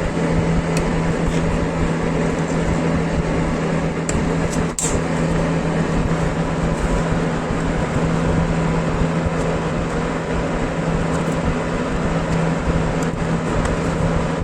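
Electric power tool running steadily with a strong hum. It stops abruptly at the end.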